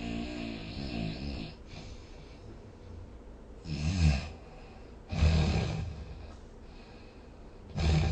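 A sleeping person snoring: a wavering, rattling snore at the start, then three short, loud snores at about four, five and eight seconds in, with quiet breathing between.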